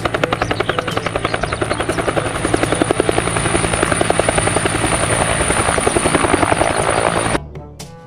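A two-bladed Huey-type turbine helicopter hovering close by, its main rotor beating in a fast, even blade slap over a steady high turbine whine. The sound cuts off abruptly about seven seconds in, giving way to light chiming music.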